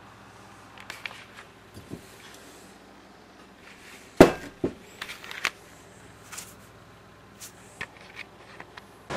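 Scattered knocks and clicks of handling and movement in a small room, one sharp knock about four seconds in the loudest, over a low steady hum.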